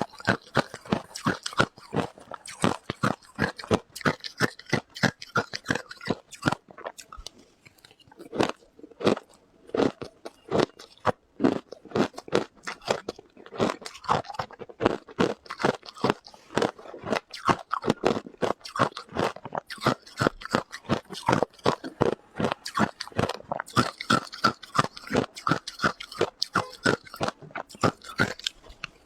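A person biting and chewing ice close to the microphone: rapid, dense crunches one after another, with a short pause about a quarter of the way in.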